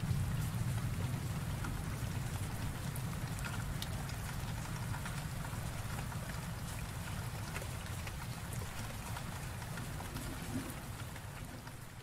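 Steady rain falling on a surface, an even hiss of drops with a low rumble underneath; the last of a roll of thunder dies away in the first couple of seconds.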